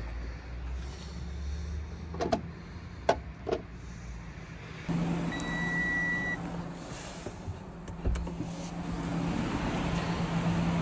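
Wind rumble with a few sharp clicks, then a steady low electrical hum and a single high electronic warning chime lasting about a second from the Audi S4's instrument cluster, followed a couple of seconds later by a knock.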